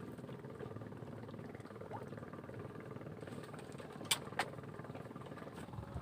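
A motor running steadily, with two sharp clicks a moment apart about four seconds in.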